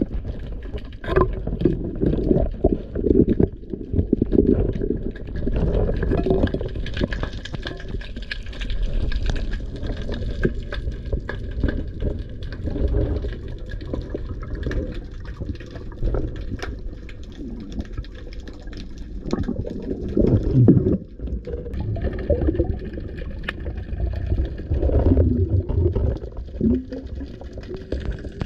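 Muffled water sound heard by a camera underwater: sloshing and gurgling that rises and falls irregularly, with scattered small clicks and knocks.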